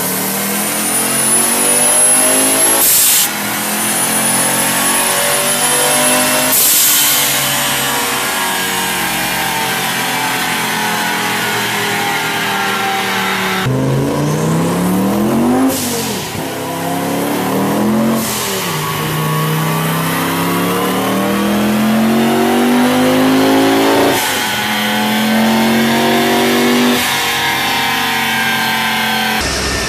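Turbocharged engine of an engine-swapped Porsche 944 running on a rolling-road dyno, revving up and down again and again. A thin turbo whistle rises with the revs during the early climbs, and a short sharp hiss comes about three and six and a half seconds in as the revs drop.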